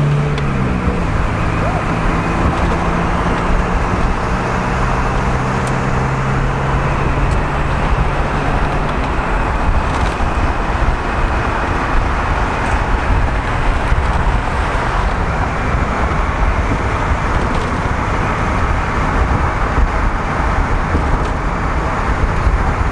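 Wind and road noise in an open-top 1990 Mazda Miata cruising at speed, a loud, steady rush over the microphone. The 1.6-litre four-cylinder engine's steady drone shows under it for the first nine seconds or so, then fades into the wind.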